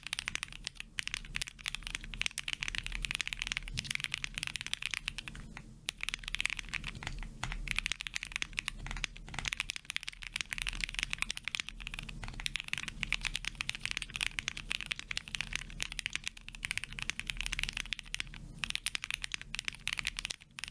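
Steady fast typing on a custom Sun68 mechanical keyboard with lubed SP Star Meteor White linear switches on a polycarbonate plate: a dense run of key clacks with a few short pauses.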